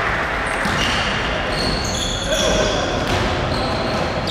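Basketball shoes squeaking on a wooden gym floor, several short high squeaks, with the basketball bouncing during play.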